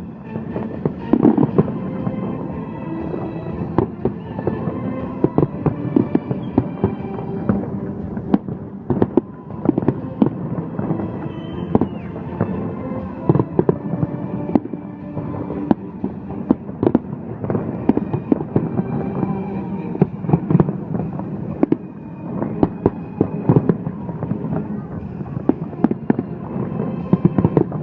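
Fireworks display: a dense, irregular string of loud bangs and crackles, several a second, over steady background music and voices.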